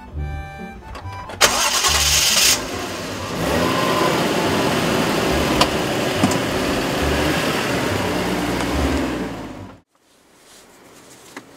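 Toyota Chaser Tourer V (JZX100) engine, a 1JZ-GTE turbocharged straight-six, starting about a second and a half in and then running steadily over background music. The sound cuts off abruptly near the end.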